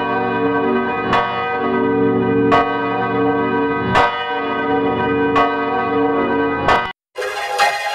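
Church bell tolling, struck about every 1.4 s with a rich ringing hum carrying on between strokes. About 7 s in it cuts out for a moment and resumes thinner and brighter, with the low end missing.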